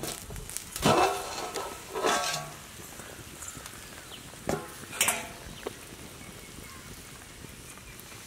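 Several clanks of a steel lid and pot, the loudest about a second and two seconds in, then tamarind curry (kulambu) boiling steadily with a soft hiss.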